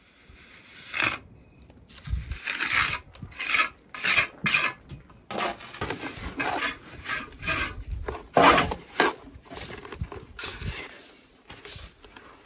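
A trowel scraping wet cement mortar off a board and onto masonry, in a string of irregular rubbing scrapes and light clinks.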